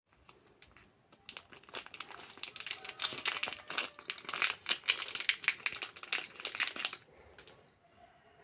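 Packaging crinkling and crackling as it is handled during an unboxing, a dense run of crackles lasting about six seconds before it stops.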